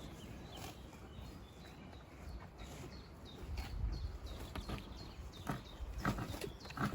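Outdoor field sound: a few short bird chirps over a low rumble that swells about halfway through.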